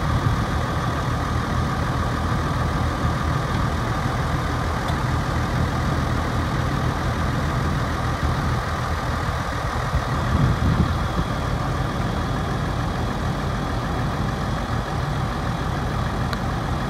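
Landini Legend tractor's diesel engine idling steadily, swelling briefly about ten seconds in.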